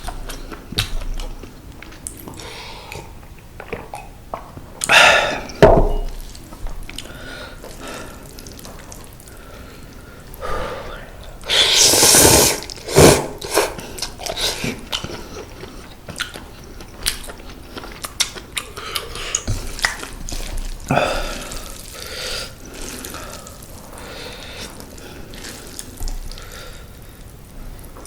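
A person eating mala-tang ramen noodles close to the microphone: wet chewing and mouth clicks, broken by several loud slurps, the longest near the middle.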